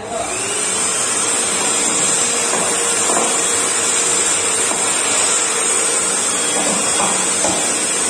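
A 1000-watt corded handheld vacuum cleaner starts up at the very beginning, its level climbing for about a second, then runs steadily while picking up scraps of torn paper. The sound is a loud, even rush of air with a high hiss and a faint motor whine.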